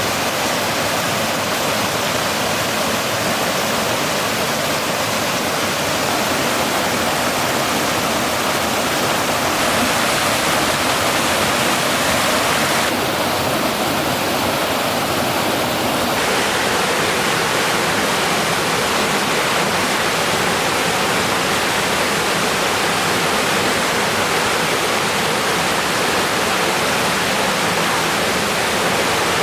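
Rushing river water: a steady, loud noise of flowing water whose tone shifts slightly a few times.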